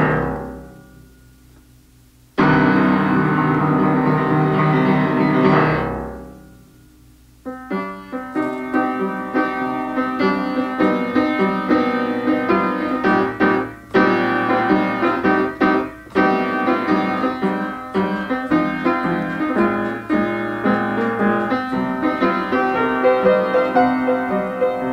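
Instrumental pop-song intro on keyboard: two long held chords that each fade away, then steady rhythmic keyboard accompaniment starting about seven seconds in.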